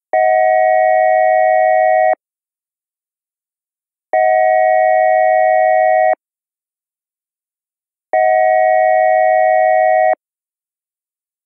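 ASC digital electronic siren controller's synthesized air-horn signal: three steady two-second horn blasts about two seconds apart, each several fixed tones sounding together.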